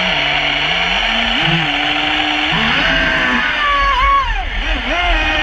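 Traxxas Spartan RC boat's brushless electric motor whining over a hiss of water, its pitch stepping and gliding up and down with the throttle, highest about four seconds in.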